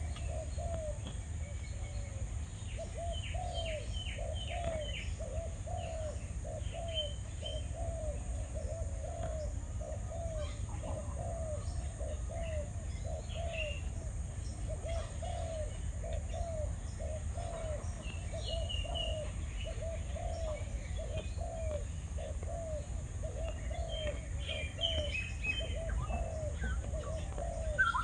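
Spotted dove (terkukur) cooing in a long, steady run of low coos, with small birds chirping now and then at a higher pitch.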